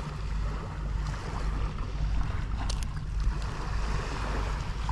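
Steady low rumble of wind on the microphone with the sea behind it. Around the middle come a few faint clicks of pliers working a hook out of a small fish's mouth.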